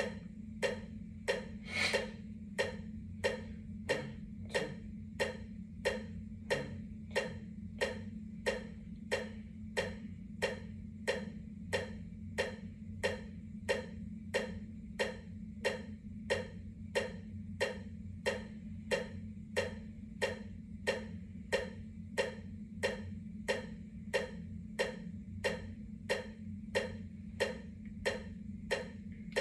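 Metronome ticking steadily at about two beats a second, every tick alike, over a low steady hum.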